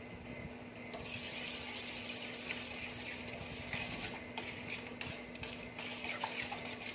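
A metal spoon stirring a thin, sesame-seed-laden soy marinade in a large stainless steel bowl, scraping against the bowl from about a second in, with sharp clinks of spoon on steel in the second half, over a steady low hum.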